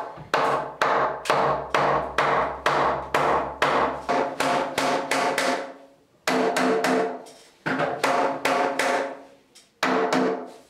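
Hammer knocking a 3x2 timber ceiling stud sideways to nudge it into position, until its centre lines up with a marked line. A quick, even run of blows, about three a second, for some five seconds, then after a pause a few slower single blows, each ringing briefly in the timber framing.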